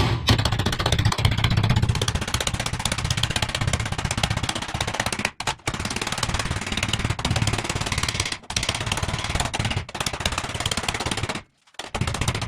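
Hammer striking a steel sheet-metal repair panel clamped in a vise, forming ridges in it. The blows come in a rapid, near-continuous rattle, broken by brief pauses about five and a half, eight and a half and ten seconds in. The hammering stops about a second before the end, and a few slower strikes follow.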